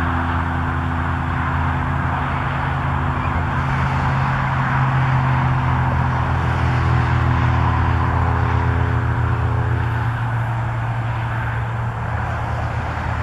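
Road traffic noise: a steady rush of vehicles with a steady low engine hum underneath that fades out about ten seconds in.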